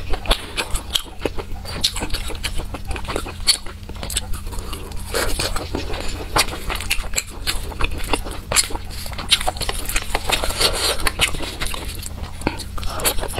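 Close-miked chewing of fatty pork skewered in chili sauce: soft, wet mouth smacks and clicks, repeated steadily.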